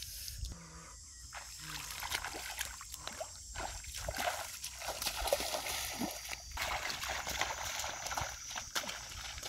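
Bare feet splashing and squelching through shallow, muddy paddy water, a string of irregular sloshing steps.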